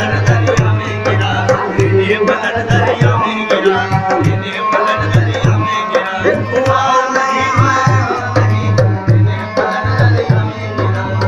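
Qawwali music in an instrumental passage: a tabla plays a busy rhythm with a deep, booming bass stroke, under a harmonium melody.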